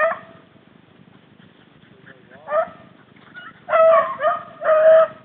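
Rabbit-hunting beagle baying: one sharp bay at the start, another about halfway through, then a string of longer, louder bays near the end. This kind of baying is the hound giving tongue on a rabbit's scent trail.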